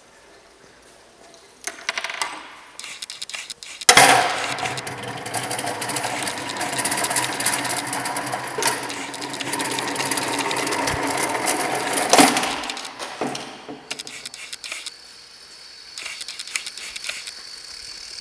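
A plastic crate rolls along a metal gravity roller conveyor, its rollers rattling loudly and continuously for about eight seconds. The run starts with a sharp knock about four seconds in and ends with another knock. Light wooden clicks from the chain-reaction parts come before and after.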